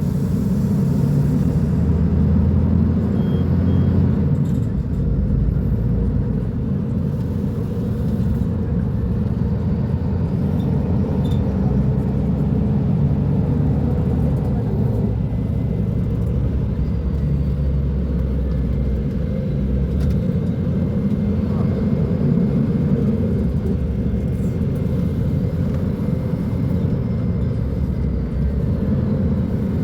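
Diesel engine of a Mercedes-Benz O500U city bus with a Voith automatic gearbox running, a steady low rumble that swells and eases slightly. A faint steady whine joins about halfway through.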